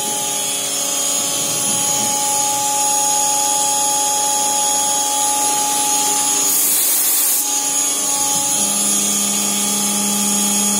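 CNC milling machine cutting gear teeth with a 2 mm ball-nose end mill in small back-and-forth passes: a steady whine of several held tones. A brief hiss comes about seven seconds in, and a lower hum joins near the end.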